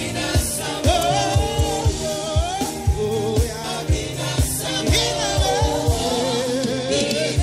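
Gospel worship song with live band: singing voices over a steady low drum beat and sustained bass.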